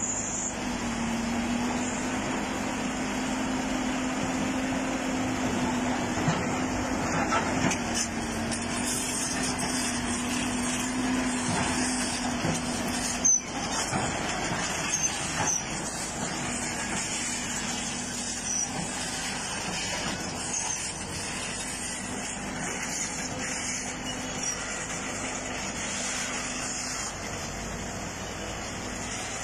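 Heavy diesel engines of an excavator and a truck running under load in a steady drone as the excavator shoves the truck up a rubble slope, with a few small clanks and one sharp knock about halfway through.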